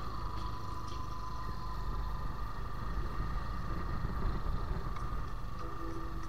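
Motorcycle riding along at a steady pace: engine running evenly under a steady rumble of wind and road.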